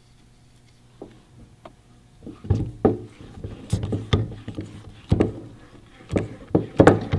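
Irregular knocks and clunks of the hydraulic handbrake lever assembly being handled and fitted together on a wooden workbench: the steel lever tube, aluminium housing and master cylinder. They start a couple of seconds in and grow busier near the end.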